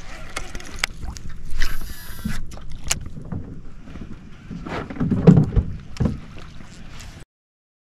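Wind on the microphone with scattered knocks and bumps, a louder run of low thumps around five seconds in, then the sound cuts off abruptly a little after seven seconds in.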